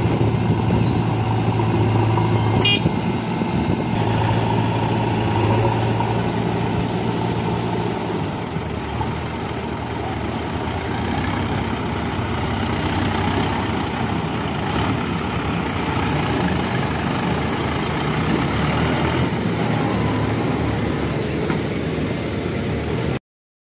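Diesel engines of a JCB 3DX backhoe loader and a four-cylinder Mahindra 585 DI tractor running steadily as the backhoe loads soil into the tractor's trolley, the pitch rising and falling a little with the work. A brief clank about three seconds in.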